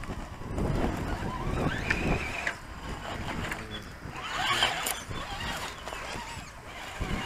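1/10-scale electric RC rock crawler climbing a rock face, its motor and geared drivetrain whining in uneven spurts as the throttle is worked, loudest a little past halfway.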